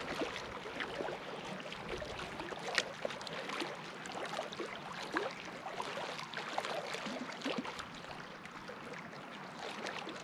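Lake water lapping gently at the shore, with small irregular splashes and gurgles.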